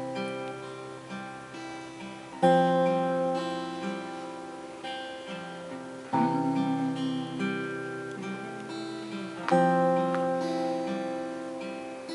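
Acoustic guitar playing a slow hymn introduction. A chord is strummed about every three and a half seconds and left to ring and fade, with single notes picked in between.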